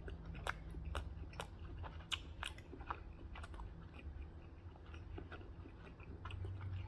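Close-up mouth sounds of a person chewing food, with many sharp crunchy clicks in the first half and sparser, softer chewing after. A low steady hum runs underneath.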